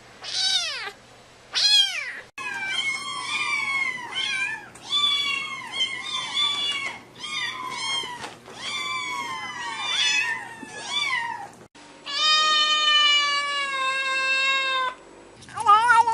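Kittens meowing in a series of short clips. First come two loud, high meows. Then a quick run of many short meows, each falling in pitch. Then one long meow held at an even pitch for about three seconds, and another meow near the end.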